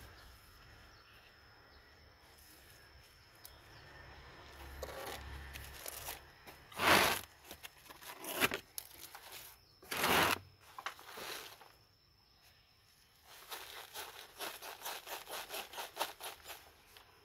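Gloved hands working plastic plant pots and potting soil: two loud short scraping rushes, then a run of quick plastic crackles as a soft black nursery pot is squeezed to loosen a plant's root ball.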